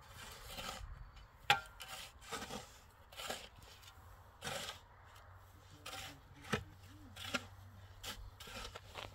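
Irregular short scraping and knocking sounds of handwork, with one sharp knock about a second and a half in.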